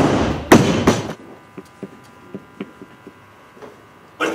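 A loaded barbell with rubber bumper plates dropped onto the lifting platform: a loud crash and a second impact about half a second later as it bounces, ringing briefly, then a few light knocks as it settles.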